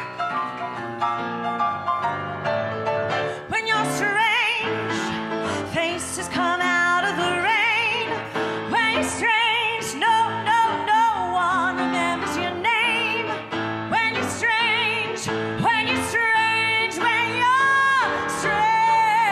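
Live grand piano accompaniment with a woman's voice singing over it with strong vibrato. The piano plays alone at first, and the voice comes in a few seconds in.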